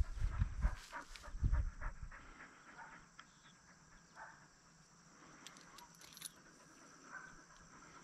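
Young Irish setter panting at about three breaths a second, with low thumps and rustling close to the microphone as the dog is held. The sounds fade after about two seconds, leaving only faint scattered clicks.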